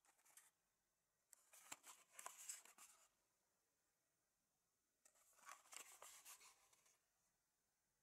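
Faint rustling and scraping of a small cardboard toy box turned over in the fingers. There are two spells of about two seconds each, starting about a second and a half in and again about five seconds in.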